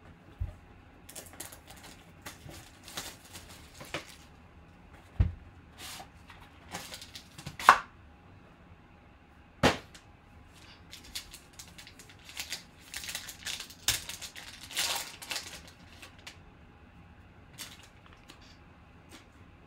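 Hands handling a trading-card box and a foil card pack: scattered sharp taps and clicks of cardboard on a tabletop, with a stretch of crinkling foil wrapper a little past the middle as the pack is torn open.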